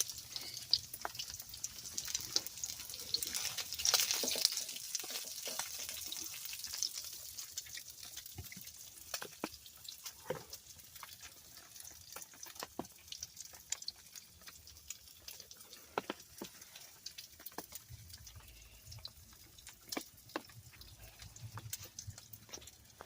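Rain dripping and pattering: a hiss of falling water, heaviest in the first several seconds, with many scattered sharp drops tapping throughout.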